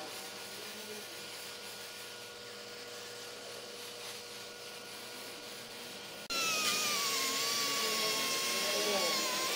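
Steady hiss of a paint spray gun's compressed air. About six seconds in, a much louder grinder takes over with a high whine whose pitch sags slightly as it bites into metal.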